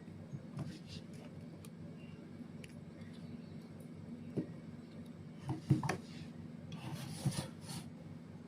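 Small hard plastic parts being handled: scattered light clicks and a stretch of rubbing about two-thirds of the way through, over a low steady hum.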